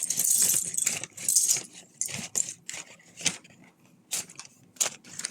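Small plastic Lego pieces rattling and clicking against each other in a plastic parts bag. A crinkling rustle in the first second or so, then a few separate sharp clicks.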